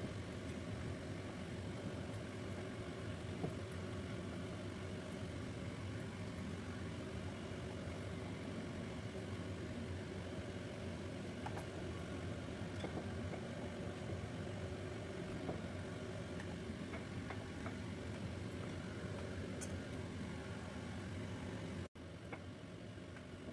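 A steady low hum with a few faint light clicks over it. It drops out for an instant near the end and carries on a little quieter.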